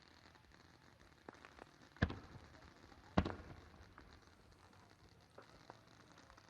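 Distant firework shells bursting: two louder booms about a second apart, each with a short rumbling tail, among a few fainter pops.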